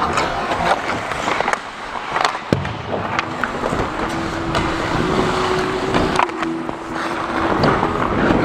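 Hockey skates gliding and scraping under a player, with several sharp clacks of stick on puck or boards, heard from a camera worn by the skater.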